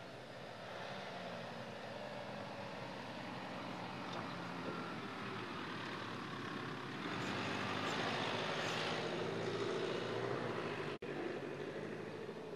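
Mercedes-Benz X-Class pickup's 2.3-litre four-cylinder turbo diesel running steadily while the truck drives off-road over a rocky dirt track, mixed with tyre and gravel noise. The sound grows louder about seven seconds in and breaks off for an instant near the end.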